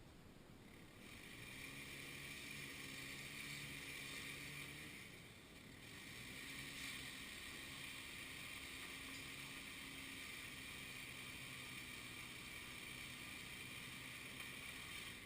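A faint engine running steadily, starting about a second in, dipping briefly around five seconds in, then running on.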